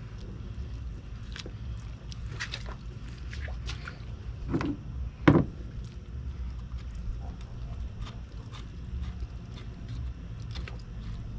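Fillet knife slicing and scraping along an alligator gar's ribs, in scattered small scrapes and clicks, with a sharp knock about five seconds in, over a steady low hum.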